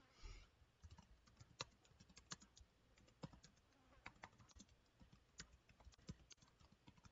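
Faint typing on a computer keyboard: irregular, quick keystrokes, a few clicks a second.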